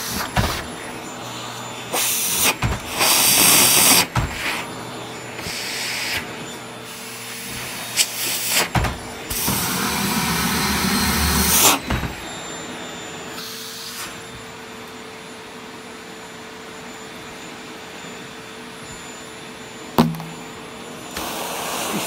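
White handheld stick vacuum cleaner running with a steady motor whine while its brush nozzle works over hair and bedding. The air rush gets much louder in several stretches, the longest about ten to twelve seconds in, and there are a few sharp knocks.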